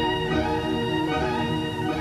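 Background music: a melody of sustained string notes, violin-led, each note held about half a second before the next.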